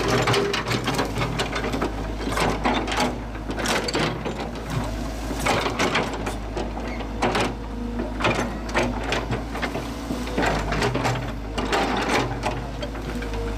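Komatsu PC120-6 hydraulic excavator's diesel engine running steadily under work, with many irregular sharp cracks and knocks as its bucket pushes through brush and wooden stakes.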